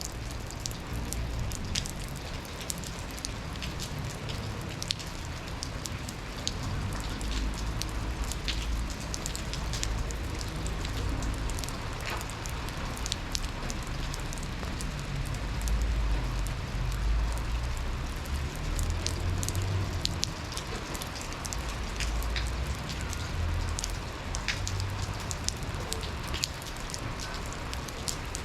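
Slow, cold rain falling steadily, with many separate sharp drop ticks on hard surfaces over an even hiss, and a low rumble underneath.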